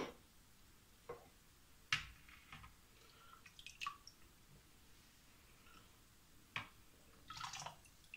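Water dripping and splashing back into a bowl as boiled squid bodies are lifted out of cold water with tongs: a few short, separate drips and splashes, the sharpest about two seconds in and a longer trickle near the end.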